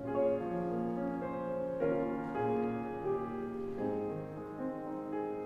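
A keyboard instrument plays slow held chords, changing about every two seconds, as a musical interlude between intercessions.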